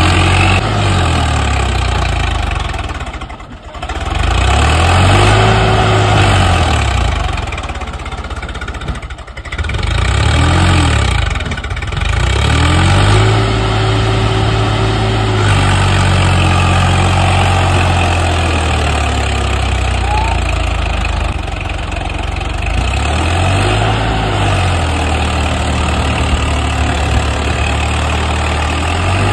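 Swaraj 855 FE 4WD tractor's three-cylinder diesel engine labouring under heavy load as it pulls a trolley loaded with paddy through wet mud. The revs rise and fall again and again, dropping off briefly about three and nine seconds in, and are held high for long stretches.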